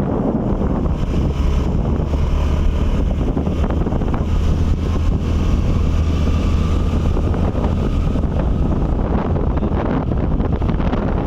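Steady loud rush of falling water, with wind buffeting the microphone and giving a heavy low rumble.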